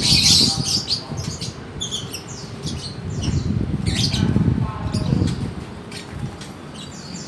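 Many caged birds chirping and squawking together. There is a loud burst of shrill calls right at the start and more bursts about four seconds in, over a low rumbling background.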